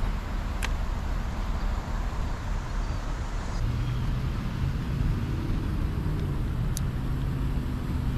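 Steady rumble of vehicle traffic, with a low engine hum coming in about halfway through. Two brief sharp clicks, about six seconds apart.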